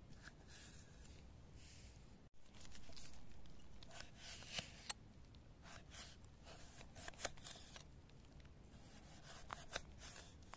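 Kitchen knife slicing raw carrot into sticks on a wooden cutting board: soft crunching cuts, with sharp taps of the blade on the board at irregular intervals.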